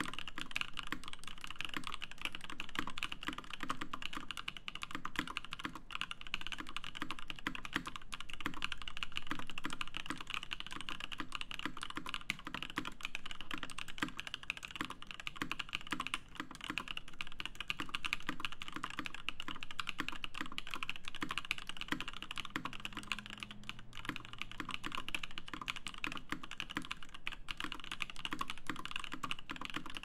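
Continuous fast typing on a Bauer 2 mechanical keyboard: lubed Auralite switches in an aluminium plate under GMK keycaps, a dense, steady run of keystrokes without a break.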